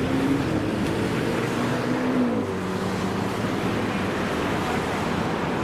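Steady road traffic noise, with a vehicle engine heard over it in the first couple of seconds that drops away.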